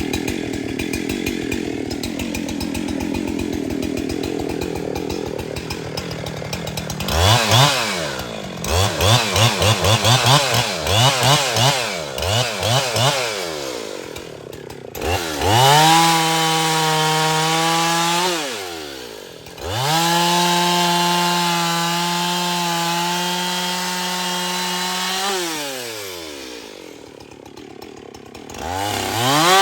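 Husqvarna 372XP two-stroke chainsaw running. It works at lower revs for the first several seconds, then is revved in a series of quick throttle blips, and is then held at high revs for a few seconds twice, falling off in between and again near the end.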